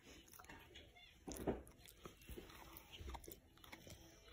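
Miniature schnauzer gnawing a chew: faint, scattered crunches and clicks of its teeth on the chew, with a louder knock about a second and a half in.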